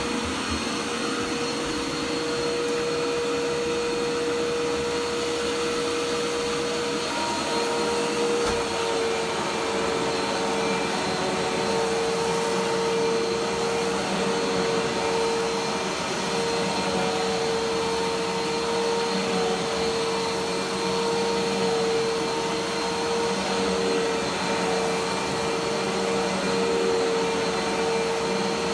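Dirt Devil Dash vacuum cleaner running steadily, a continuous motor drone with a strong steady whine that wavers slightly from about a quarter of the way in.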